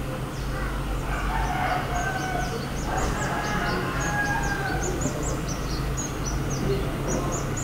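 Many small birds chirping in quick, high, falling notes, and a rooster crowing between about one and a half and five seconds in, over a steady low hum.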